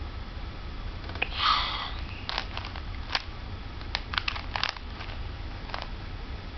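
Plastic Rubik's cube faces being turned by hand: a short rustling burst about a second and a half in, then sharp clicks and clacks in quick little clusters.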